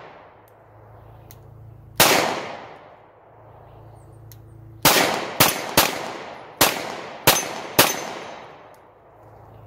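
Seven shots from a Polymer 80 Glock-pattern 9mm pistol firing 115-grain FMJ: one shot, then after a pause of about three seconds six more in quick succession. Each shot trails off in an echo.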